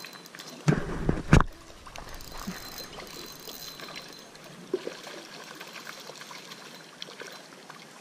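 Shallow creek water trickling over stones, with two loud low thumps about a second in.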